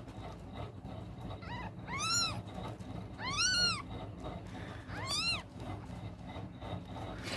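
Newborn kitten mewing in four high-pitched cries that rise and fall, the third the longest and loudest: a hungry kitten searching for its mother's teat.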